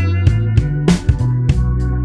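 Background music with guitar, bass and a steady drum beat.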